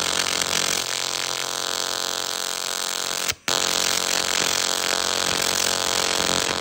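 AC TIG welding arc on aluminum, buzzing steadily with a hiss, with a brief cut-out about halfway through.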